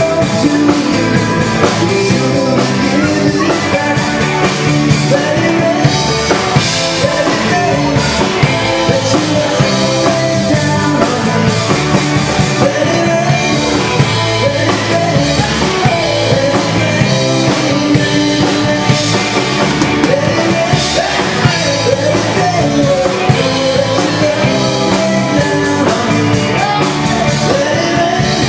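Live rock band playing through a PA: electric guitars, bass guitar and a drum kit, with a man singing.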